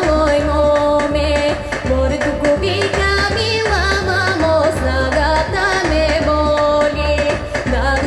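A woman singing a Bulgarian song into a microphone over instrumental backing with a steady bass beat. Her voice wavers with vibrato on the held notes.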